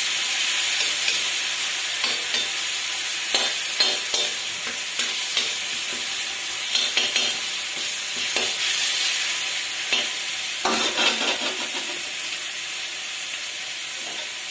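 Chopped onion and garlic sizzling steadily in hot oil in a kadhai, stirred with a spatula that scrapes the pan now and then, with a longer scrape about eleven seconds in.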